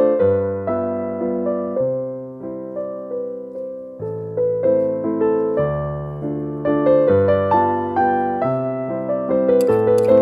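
Background piano music: a gentle melody of single notes over low bass notes.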